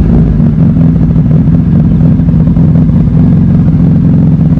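Suzuki Hayabusa's 1340 cc inline-four engine idling steadily and loudly, breathing through aftermarket Austin Racing replica exhausts.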